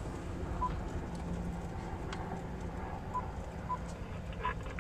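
Road rumble and rattling inside a vehicle's cab as it drives along a dirt road, with scattered knocks and a few short, high beeps.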